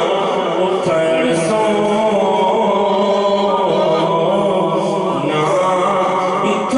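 Men's voices chanting a Sufi devotional song in long, unbroken held lines, steady in loudness.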